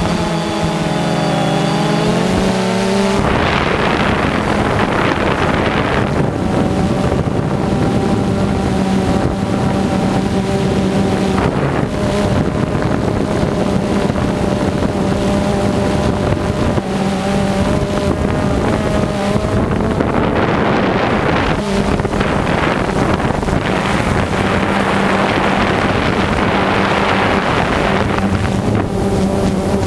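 Multirotor drone's motors and propellers buzzing steadily at one pitch, picked up loud and close by the drone's onboard camera. The pitch wavers for the first few seconds, then settles, with gusts of wind rushing over the microphone now and then.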